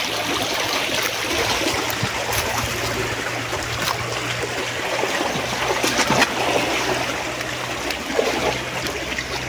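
Shallow stream water trickling and splashing as electrofishing probes are swept through it, with a few short splashy clicks over a steady low hum.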